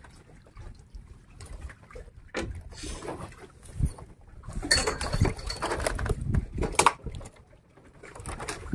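Water sloshing and splashing around a small boat, with irregular knocks and clatter, busiest past the middle.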